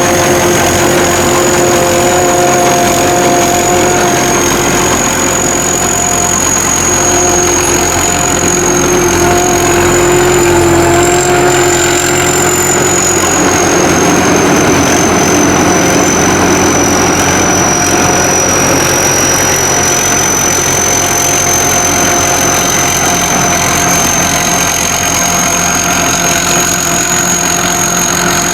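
Sakpattana SS-200 mini combine harvester running: a loud, continuous drone of engine and machinery with a steady high whine that drifts slightly in pitch. Some lower hums fade about halfway through.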